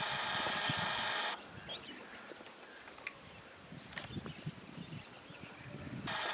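Loud, steady insect drone that cuts off abruptly about a second in and starts up again near the end, with a quieter outdoor background and a couple of faint clicks in between.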